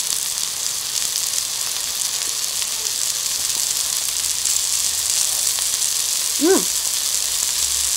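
Asparagus spears and melted cheese sizzling steadily on a hot stovetop grill pan, with a brief hummed voice sound about six and a half seconds in.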